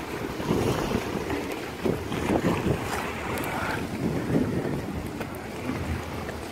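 Strong, gusting storm wind of a sudden squall, buffeting the microphone in an uneven rumble.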